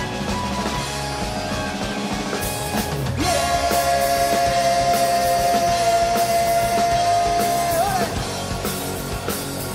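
Live rock band playing: drum kit, electric guitars and bass. About three seconds in, a long high note is held for about five seconds and bends upward as it ends.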